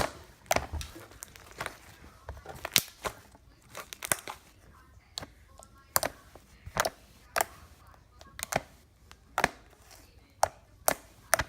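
Pink soft serve slime being poked with fingers: a run of sharp, sticky pops and clicks at an uneven pace, roughly one every half second to a second.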